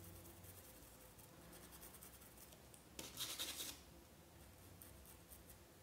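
Small paintbrush scrubbing paint through a stencil onto a cloth dish towel: a brief run of quick scratchy strokes about three seconds in, otherwise faint.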